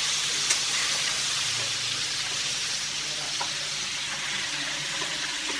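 Marinated chicken leg pieces sizzling in shallow oil in a pan: a steady frying hiss, with a light click of a wooden spatula about half a second in as the pieces are turned over.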